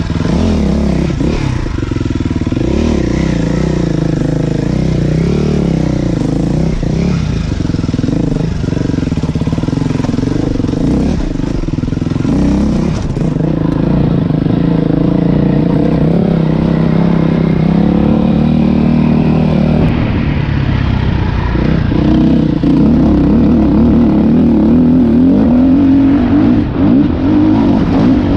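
Dirt bike engine running under load on a trail, its pitch rising and falling constantly with the throttle, then holding steadier and a little higher near the end.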